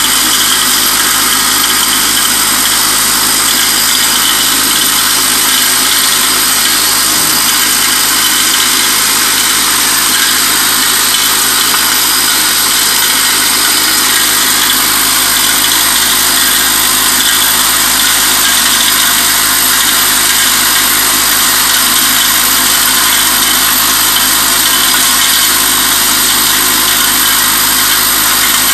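Vibratory bowl feeder running steadily: a constant mechanical buzz with the metallic jingling and rattling of many small flat stamped metal parts shaking along the bowl and up its spiral track.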